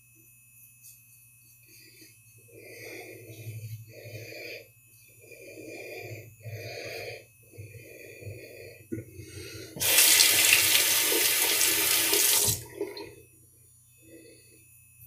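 Rockwell 6C double-edge safety razor scraping through lathered stubble in about five short strokes. Then a tap runs loudly into a sink for about three seconds and is shut off.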